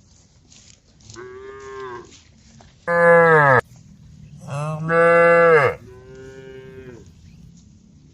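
Cows mooing: a fainter, higher-pitched moo about a second in, then two loud, lower moos that drop in pitch as they end, and another fainter, higher moo after them.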